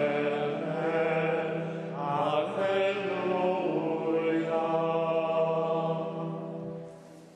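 Voices singing Latin plainchant in long sustained phrases over a steady low held note, dying away in the last second.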